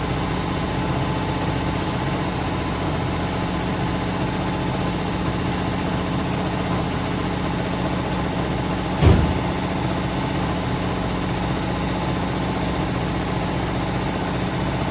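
Ford Falcon's engine idling steadily, with one short, loud thump a little past the middle.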